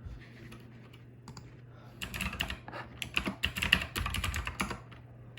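Computer keyboard being typed on in a quick run of key clicks, starting about two seconds in, as an email and password are entered. A steady low hum sits underneath.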